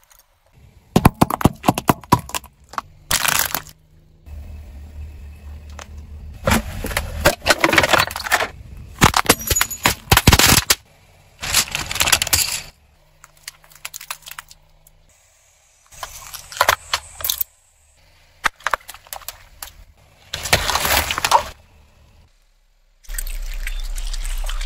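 A car tyre rolling over and crushing coloured pencils and other brittle objects, one after another: repeated bursts of crunching, cracking and snapping, each lasting a second or two, with short pauses between.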